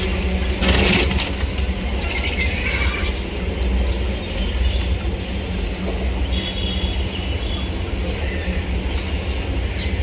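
Budgerigars chirping faintly over a steady low rumble, with a brief burst of rustling noise about a second in.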